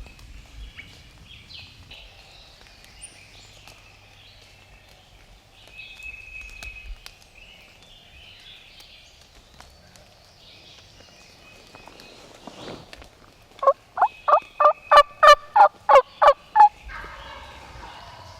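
Turkey calling: a loud run of about ten quick, evenly spaced notes a few seconds before the end, then a fainter call. Small birds chirp faintly earlier on.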